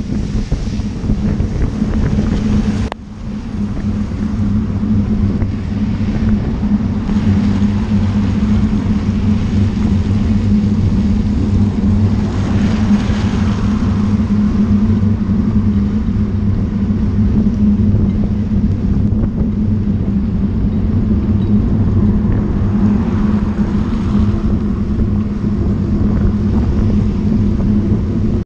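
Wind buffeting the microphone of a camera on a moving bicycle, mixed with traffic and tyre hiss on a rain-soaked road. The noise drops sharply about three seconds in, then builds back. A car passes about 13 seconds in, its tyres hissing on the wet road.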